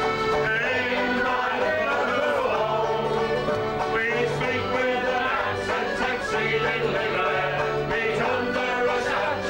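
Folk band playing a tune on acoustic instruments, plucked strings over a bass line, with no words.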